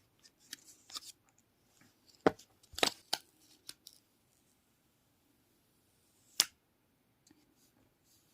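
Unboxing handling noises: short rustles and sharp clicks and taps from the phone's packaging being opened and handled. The loudest clicks fall about two to three seconds in, with one more sharp click past six seconds.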